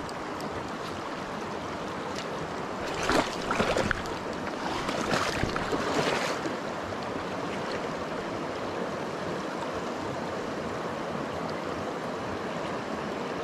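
Small mountain creek running over rocks and riffles, a steady rush of water. Two louder whooshes break over it about three and five seconds in.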